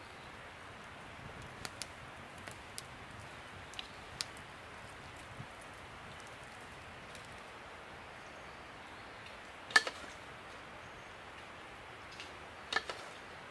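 Chopsticks clicking against a metal cooking pot and a bamboo cup: scattered light taps, then two louder clicks, the second a quick double, over a steady faint hiss.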